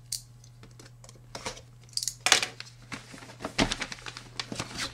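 Hands handling and opening a cardboard phone box and its packaging, with rustling, crinkling and scraping in irregular bursts, loudest about halfway through. A low electrical hum runs underneath.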